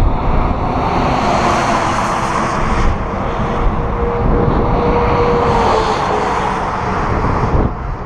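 Steady traffic noise with wind buffeting the microphone, and one vehicle's hum dropping in pitch as it passes about five seconds in.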